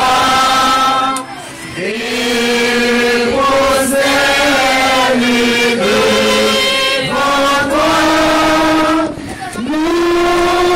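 Loud chant-like singing in long held notes. Each phrase scoops up into its note, with two short breaks for breath, about a second in and again near the end.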